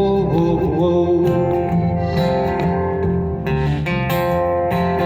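A folk band playing a song live, led by strummed acoustic guitar over a steady beat, in a short instrumental passage.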